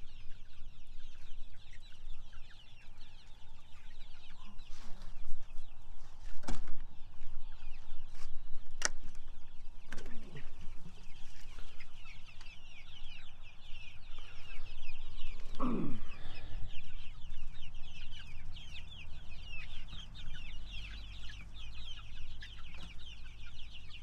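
A flock of young laying pullets cheeping and peeping in a brooder, a dense, continuous chatter of short high chirps. A few sharp knocks sound in the first half, and a single lower falling call comes about two-thirds of the way through.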